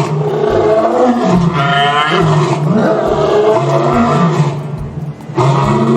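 A big cat roaring and growling, a loud low call that rises and falls in pitch, with a short break about five seconds in.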